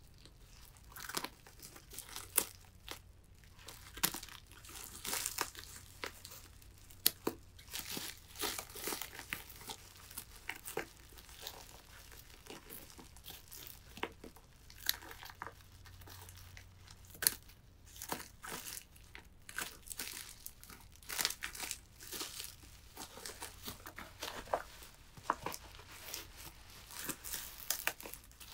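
Plastic stretch wrap and bubble wrap crinkling and tearing as scissors cut through them, in irregular short crackles and snips.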